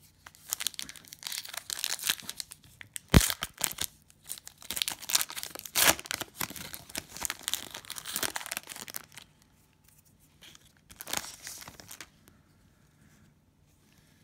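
Cellophane wrapper of a trading-card cello pack being torn open and crinkled, in dense crackling bursts for about nine seconds with a sharp snap about three seconds in, then one more short crinkle near the end.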